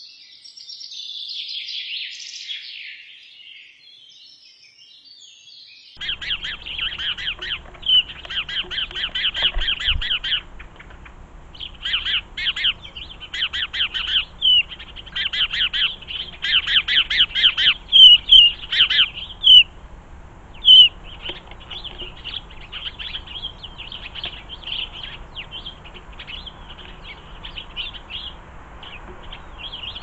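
Small garden birds chirping, most likely house sparrows: quick high chirps in dense bursts, loudest in the middle and fainter towards the end. A fainter bird song is heard in the first few seconds before the background changes abruptly about six seconds in.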